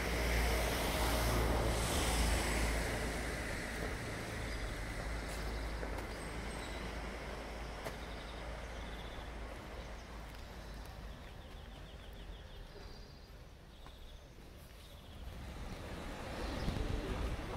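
A church bell's ring dying away after a single strike, fading over the first two or three seconds, then outdoor ambience with a low steady rumble.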